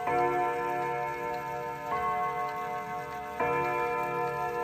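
Kienzle pendulum wall clock striking the hour on its gong at nine o'clock. There are three slow strikes, under two seconds apart, each ringing on into the next, with the clock's ticking underneath.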